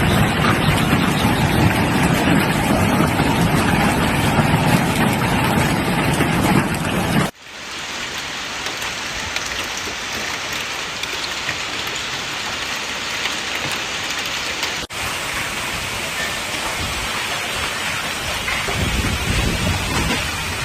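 Hailstorm: hail and rain pelting down on surfaces, a dense steady hiss. The sound changes abruptly about seven seconds in and again near fifteen seconds, the first part being the loudest.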